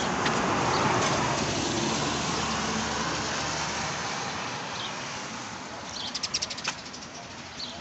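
A car passing on a wet road: tyre hiss swells to a peak about a second in and slowly fades away. Near the end comes a short, rapid rattle of clicks.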